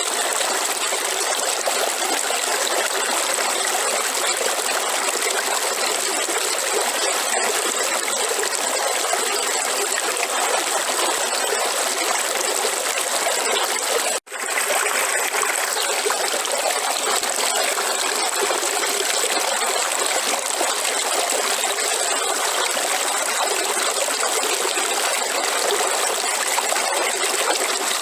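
Flowing river water: a steady rushing, with little below the mid-range, that drops out for an instant about halfway through.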